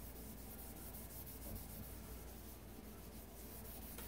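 Faint rubbing of a felt rag wiped back and forth over a Bakelite radio cabinet while applying a wood finish.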